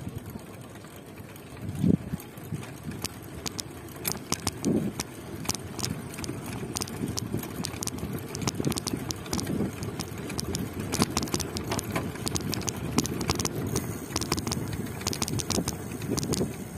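Road noise from a moving bike: a steady low rumble with frequent small clicks and rattles, and a sharper thump about two seconds in.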